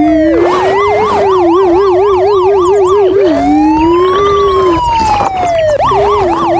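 Toy police SUV's electronic siren sounding: a slow rising-and-falling wail that switches to a fast yelp, cycling twice, over a lower warbling tone.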